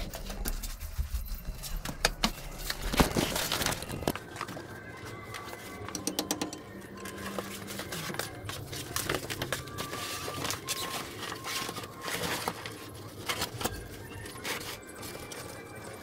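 A large plastic sheet rustling and crackling as it is handled and spread out, with irregular knocks and clicks throughout.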